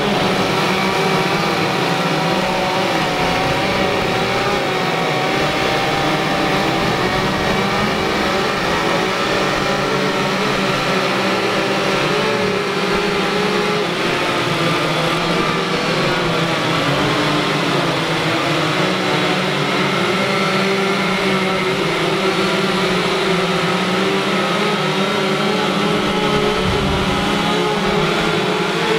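Several gasoline two-stroke chainsaws running at once as carvers cut into logs, their overlapping engine pitches wavering up and down without a break.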